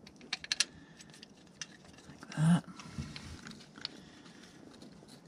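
Light metal clicks and ticks of a bolt, socket and extension being handled and threaded by hand into a steel bracket, with a quick cluster of sharp clicks about half a second in and a few scattered ticks after.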